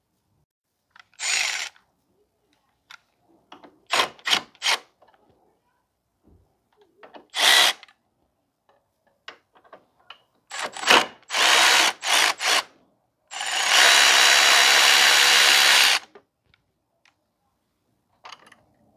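Cordless power drill run in a string of short bursts, then one steady run of about three seconds.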